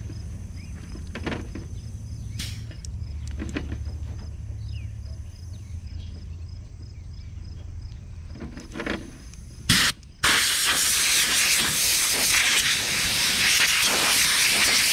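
Compressed air from a blow gun hissing through the fine inner air filter of a John Deere 1025R to blow it clean. One short burst comes a little past halfway, then a loud, steady blast runs for the last five seconds.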